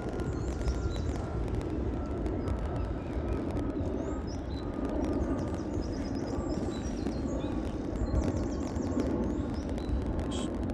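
Small songbirds chirping and trilling again and again, over a steady low rumbling background.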